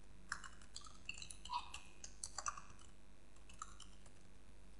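Faint, irregular keystrokes on a computer keyboard, about ten taps that stop about three and a half seconds in.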